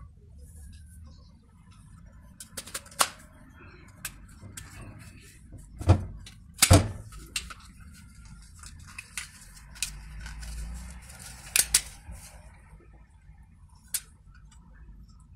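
Clicks and knocks from a handheld plastic vegetable slicer with steel blades, as a vegetable is pressed and cut through it over a pot. The clicks come irregularly, the loudest pair about six to seven seconds in, with a softer scraping stretch a little after.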